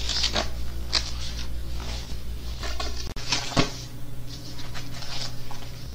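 Thin Bible pages being leafed through: a series of short papery rustles and soft handling sounds, with a sharper knock a little past halfway, over a steady low hum.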